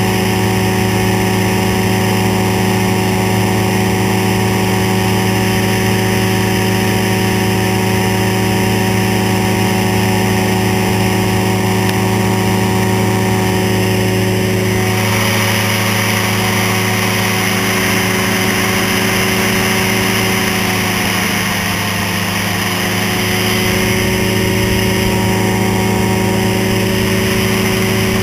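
Ultralight trike's engine running steadily in flight, with wind rushing past the aircraft. From about halfway the wind noise is stronger, and about two-thirds through the engine note dips briefly and recovers.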